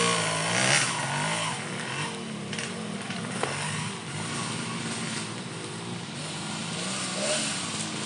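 Engine of a motor dolak, a modified wood-hauling motorcycle, its pitch rising and falling with the throttle. It grows fainter about a second in and runs on more quietly.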